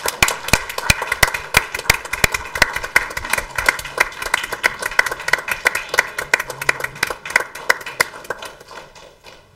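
A small group applauding with quick, uneven hand claps that die away near the end.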